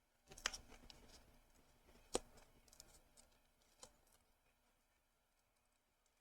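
Faint handling of small model parts as a thermal blanket is fitted around a scale model's exhaust manifold: a few sharp clicks and taps, the loudest about half a second and two seconds in.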